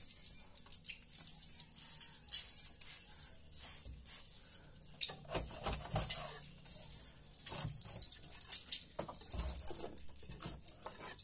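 Swiftlet roosting calls: high twittering chirps repeating in a steady cycle, with knocks and scraping from a small tool prying a swiftlet nest off a wooden board, mostly in the second half.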